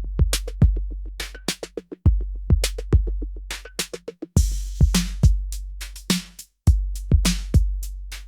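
Electronic trance music intro with a drum-machine beat: quick, evenly spaced hi-hat ticks and kick hits over a deep bass note that swells again about every two seconds.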